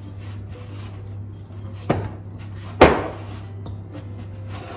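Two knocks from a glass mixing bowl as cookie dough is kneaded and gathered in it by hand, about a second apart near the middle, the second louder with a short ring. A steady low hum runs underneath.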